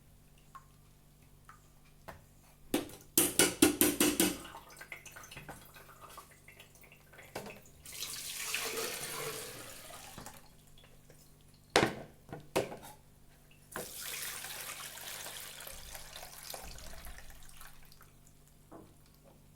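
Blended lemon juice poured through a sieve into a bowl: two long pours of liquid splashing through. A quick run of loud sharp knocks about three seconds in, and a couple of clicks between the pours.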